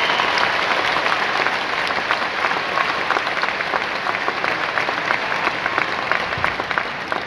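Large arena audience applauding, a dense patter of many hands clapping that slowly dies down toward the end.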